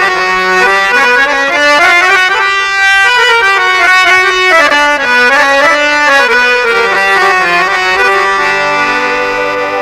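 Instrumental introduction of a 1980s Hindi film song: a reed-like melody of stepping held notes over sustained chords. Near the end it settles into a long held chord.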